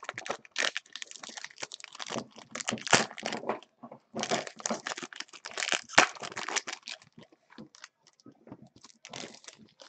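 Foil trading-card pack wrapper crinkling and tearing as it is ripped open, a dense run of crackles that thins to scattered light rustles and clicks after about seven seconds.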